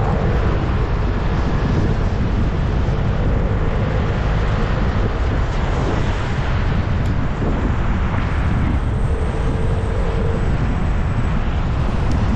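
Vespa scooter riding along, its engine running steadily under heavy wind rumble on the action camera's microphone.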